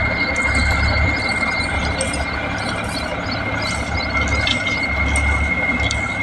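Steady low rumble of a running engine, with a constant high-pitched whine over it and a few faint ticks.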